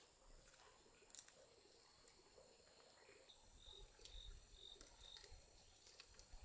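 Near silence with faint insects trilling in steady high tones and four short chirps about halfway through, plus a few faint clicks.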